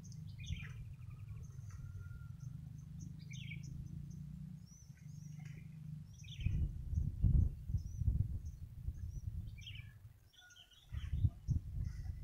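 Small birds chirping now and then over a low rumble on the microphone, which swells loudest twice, about halfway through and near the end.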